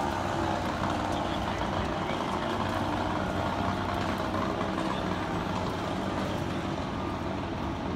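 Steady street traffic noise with a low, even engine hum from a motor vehicle.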